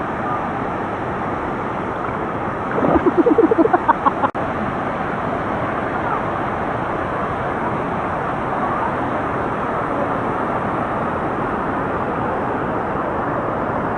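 Waterfall water rushing steadily. About three seconds in, a person's voice breaks in briefly, with a short pulsing burst like laughter, and a sharp click follows just after.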